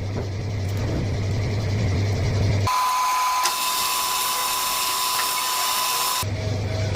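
Metal lathe machining brass, a steady machine whine. The sound changes abruptly about three seconds in and again near the end: a low steady motor hum in the first and last parts, and a thin steady high tone in the middle.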